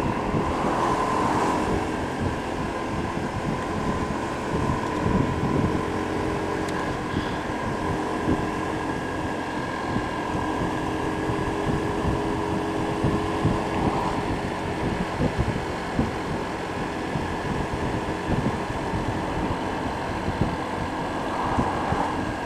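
Honda PCX scooter's single-cylinder engine running at a steady cruise, with wind buffeting the microphone in irregular low rumbles.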